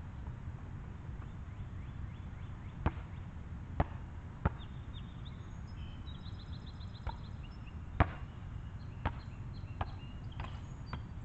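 A basketball thudding on an outdoor asphalt court as a player shoots alone: irregular single knocks a second or so apart, the loudest about eight seconds in, over steady low background noise.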